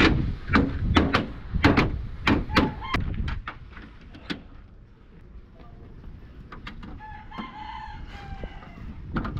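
A quick run of sharp knocks and clicks through the first three seconds as the front grille and badge of a Volvo truck cab are pressed and fitted into place. A rooster crows once, about seven seconds in.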